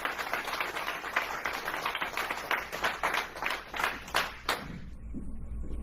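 Audience applauding, the claps dying away about four and a half seconds in.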